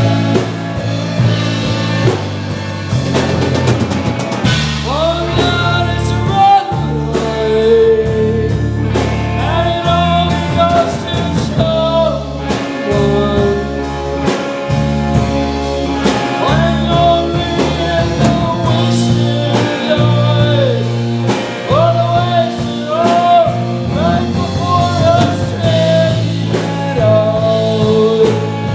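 Live rock band playing: distorted electric guitars, bass and drum kit, with a woman singing lead from about five seconds in.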